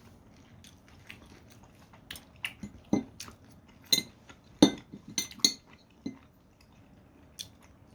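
Eating utensils clicking and clinking against dishes and food containers in scattered, irregular taps, the loudest about four and a half seconds in.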